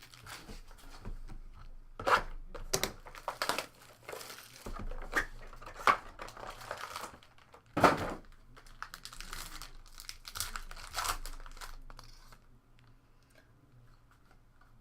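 Plastic wrapping and trading-card packs being torn open and crumpled by hand, in irregular rips and crinkles. The sharpest rip comes about eight seconds in, and it dies down near the end.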